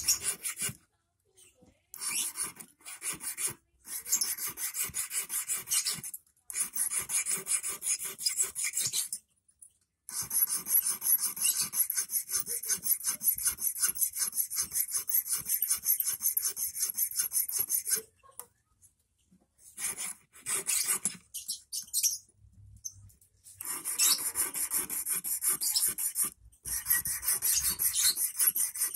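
Small hand file rasping back and forth across the tip of a 2.5 mm stainless steel wire, shaping the point of an eel hook. It goes in runs of quick strokes, stopping and restarting several times.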